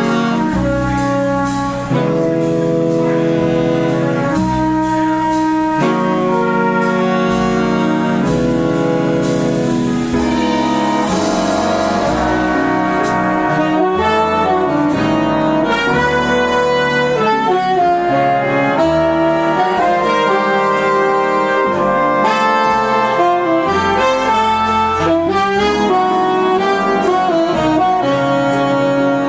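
Live big band jazz: a horn section of saxophones, trombones and trumpets playing together, in held chords changing every second or two at first, then busier, faster-moving lines from about halfway through.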